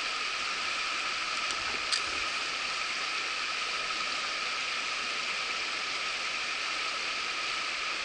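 Small rocky mountain headwater stream running over stones and riffles, a steady rushing hiss. A faint click about two seconds in.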